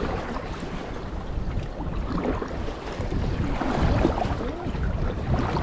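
Wind rumbling on the microphone over water lapping and splashing around a sea kayak, growing louder toward the end.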